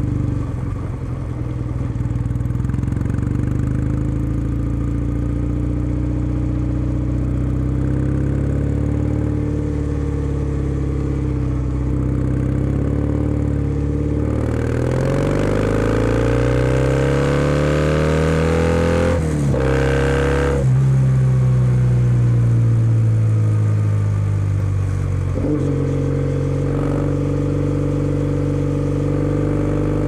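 Kawasaki W650's air-cooled parallel-twin engine, breathing through a POSH W1 full exhaust and heard from the rider's seat. It cruises steadily at first, then about halfway through the revs climb for several seconds, break off at a gear change, and pick up louder before easing. Wind noise swells as the bike gathers speed.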